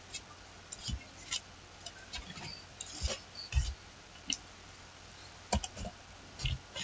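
Slow, uneven typing on a computer keyboard: about ten separate key clicks, each with a low thump.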